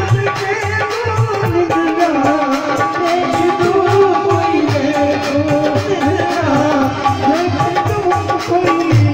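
Live devotional kirtan music: hand drums keep a steady beat under a wavering melody line.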